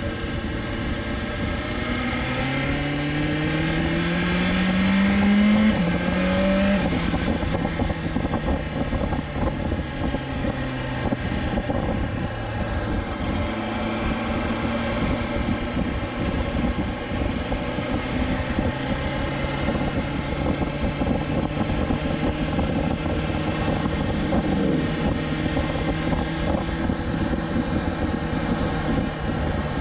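2020 BMW S1000XR's inline-four engine pulling through the gears: the pitch climbs, drops at an upshift about six seconds in, climbs briefly and drops again at a second shift, then holds steady at cruising speed.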